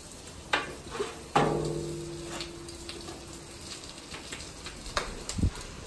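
Metal tongs clacking against a plate and a steel tray as roasted potatoes are moved onto a gas barbecue, over a steady sizzle of food cooking on the grill. Three sharp knocks come in the first second and a half, the last leaving a brief ringing hum, then lighter ticks and a couple of dull thumps near the end.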